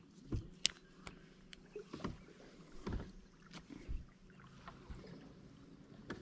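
Sounds aboard a fishing boat on the water: a faint steady hum, with scattered low knocks and thumps against the hull and one sharp click about two-thirds of a second in.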